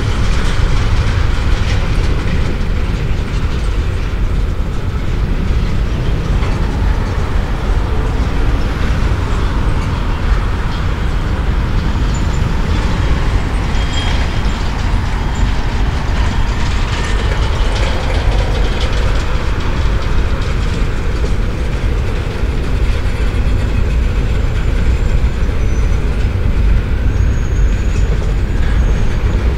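Double-stack container freight train rolling steadily across a railway overpass: continuous loud wheel-and-rail noise of the passing cars, strongest in the low end.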